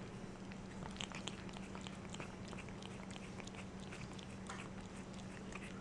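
Persian cats licking at a Lickity Stik roll-on treat tube: faint, irregular wet licking clicks over a steady low hum.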